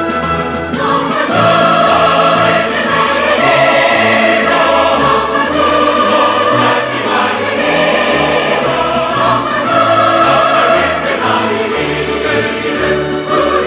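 A large mixed choir of men and women sings in Korean with an orchestra. The orchestra plays alone at first, and the choir comes in about a second in, singing full-voiced to the end.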